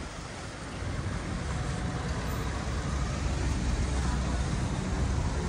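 Steady city street noise, mostly a low traffic rumble, growing a little louder over the first couple of seconds.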